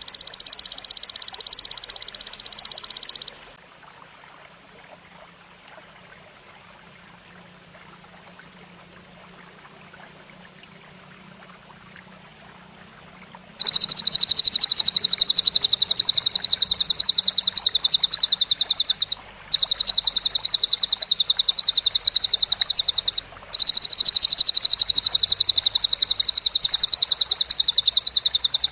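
High-pitched, very rapid buzzing trill of the kind played as masteran for competition songbirds. It runs for about three seconds and stops, leaving only a faint hiss. Roughly ten seconds later it returns as long unbroken phrases with two brief pauses.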